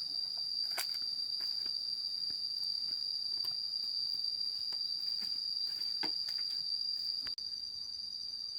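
Insects, crickets by the sound of it, trilling in one continuous high-pitched tone, with a few faint clicks or knocks over it.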